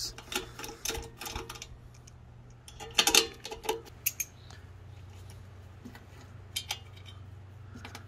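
Socket ratchet clicking as 10 mm nuts are spun off the muffler studs of a mower engine, with sharper metal clinks of the nuts and tool about three seconds in and again near the end.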